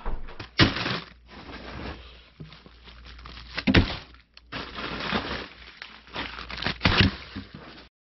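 Three sharp thuds about three seconds apart, with rustling handling noise between them, from a small chest freezer being handled and its lid shut.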